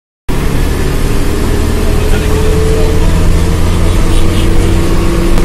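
Moving bus heard from inside the passenger cabin: engine and road noise as a steady low drone with a faint held whine.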